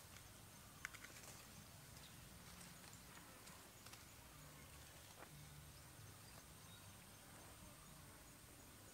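Near silence: faint outdoor background, with a few faint clicks about a second in.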